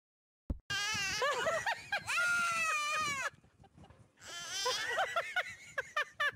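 A baby goat and a toddler bleating and squealing back and forth at each other: two long, high, wavering cries, the first starting just under a second in and lasting about two and a half seconds, the second a second later. A short thump comes just before the first cry.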